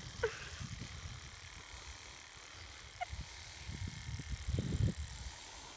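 Low, uneven rumbling of wind buffeting a phone microphone, mixed with handling bumps. It swells strongest a little before the end.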